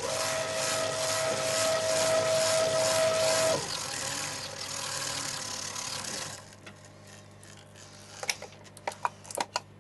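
Milling machine's head being driven back down its column by motor: a steady mechanical whine for about three and a half seconds, then a lower running noise that stops about six seconds in. A few light clicks follow near the end.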